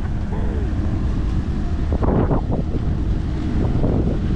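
Strong wind buffeting the microphone in a steady low rumble, surging briefly about two seconds in.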